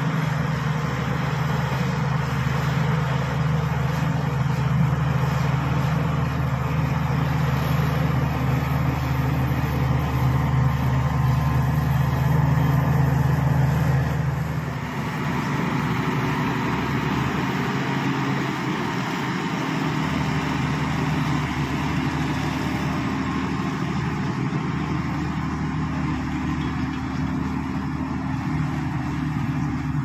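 Shantui SD16 crawler bulldozer's diesel engine running steadily as it pushes earth. The engine note changes about halfway through and is less steady after that.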